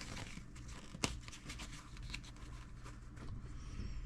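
Small handling noises from working with RC crawler wheels and tire parts at a workbench: rustling and scattered light clicks, with one sharp click about a second in.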